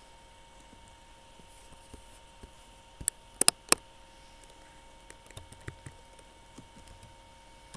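Computer mouse clicks, three or four sharp ones about three seconds in, then light tapping on a computer keyboard in the second half, over a faint steady electrical hum.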